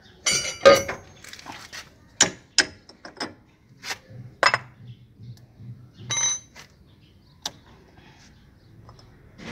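The broken steel front coil spring of a Suzuki Bolan clinking and knocking against its shock-absorber strut as it is moved by hand: about eight sharp metallic clinks, a few ringing briefly, the loudest in the first second.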